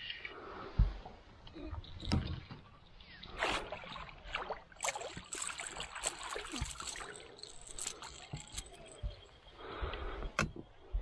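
A hooked fish thrashing and splashing at the surface beside the boat as it is scooped into a landing net, with water sloshing and a run of sharp clicks and knocks of gear against the boat.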